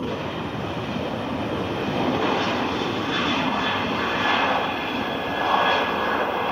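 Jet airliner's engines running: a loud, steady rush with a faint high whine, swelling slightly about five seconds in.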